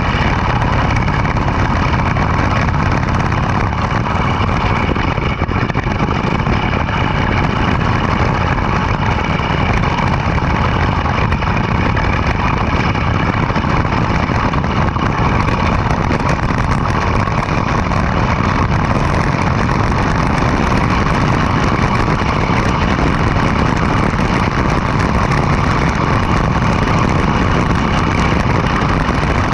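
Go-kart's small gasoline engine running steadily while the kart is driven.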